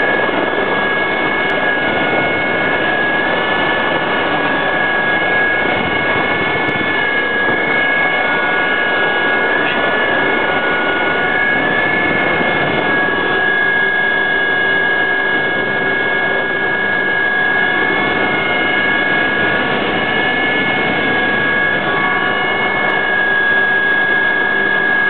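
Helicopter heard from inside the cabin during takeoff: a loud, steady high-pitched whine over a constant rushing noise of engine and rotor.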